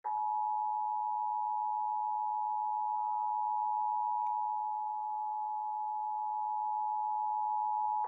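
Emergency Alert System attention signal: the dual-tone 853 Hz and 960 Hz alert tone, heard from a television broadcast, held steady for about eight seconds and starting and stopping abruptly.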